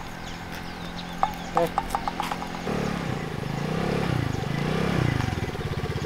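Motor scooter approaching, its engine coming in about two and a half seconds in and growing louder, its pitch rising and falling as the rider works the throttle. Before it, a brief rapid run of sharp chirps or clicks.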